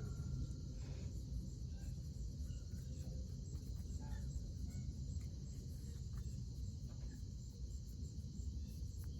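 Outdoor farmyard ambience: a steady high chirring of insects over a low, even rumble, with a few faint small sounds.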